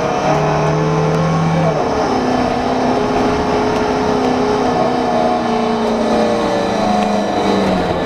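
Transit bus running, with a steady whine of several tones over its engine and road noise. The whine shifts pitch in steps, jumping higher about two seconds in; it is an odd sound from this bus.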